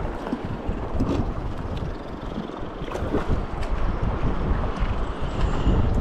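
Wind buffeting the microphone over the rush of river water, a rough uneven rumble with a few small ticks scattered through it.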